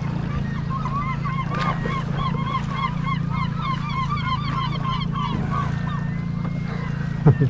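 A flock of birds calling, many short honking notes overlapping several to the second for about five seconds, over the steady low hum of the boat's idling engine. A short, loud low sound cuts in near the end.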